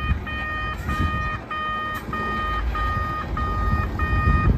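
An electronic beeper sounding a steady series of short, even beeps, about two a second, over a low rumble.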